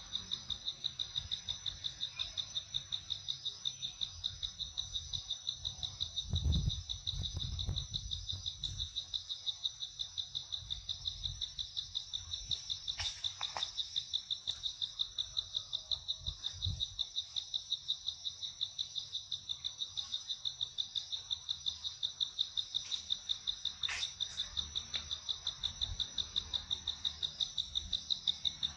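Steady chorus of insects, a high-pitched trill pulsing rapidly and evenly. A brief low rumble comes about a quarter of the way in, and a shorter one a little past halfway.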